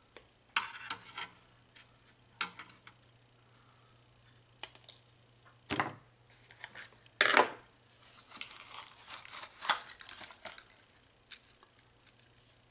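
Scattered small clicks, taps and scrapes of tools being handled during soldering work, over a faint steady hum.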